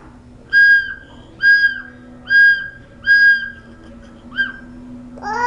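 A squeaky toy squeezed over and over: five short, identical high-pitched squeaks at a bit more than one a second, then a higher squeak that slides upward near the end.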